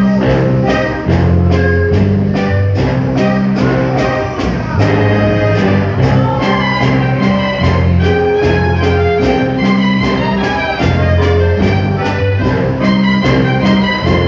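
Band music with brass instruments over a strong bass line and a steady beat.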